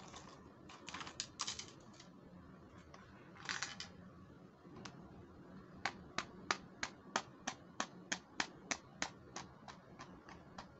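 Hard pink plastic toy makeup case being handled, with a few short bursts of plastic clicking and rattling. Then comes a steady run of crisp fingernail taps on its lid, about four a second, through the second half.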